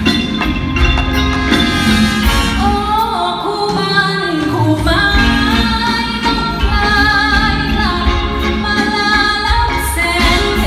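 A woman singing live into a microphone over band accompaniment with a strong bass, amplified in a large concert arena.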